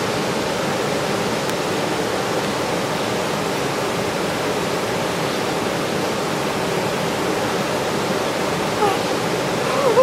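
Steady rushing of a waterfall and its cascading stream, an even roar of falling water.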